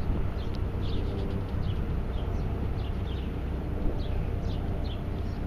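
Small birds chirping, many short falling chirps a few each second, over a steady low rumble of city traffic and wind.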